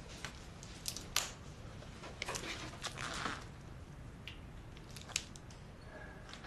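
A framed picture handled on a bar counter: light rustles and a few small clicks and knocks, with a longer rustling stretch about two to three seconds in.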